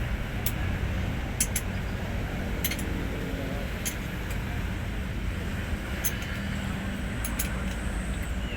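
A truck diesel engine running steadily, with a few short, light metallic clinks scattered through it.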